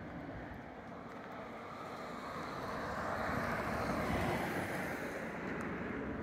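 A vehicle driving past, its noise swelling to a peak about four seconds in and then fading.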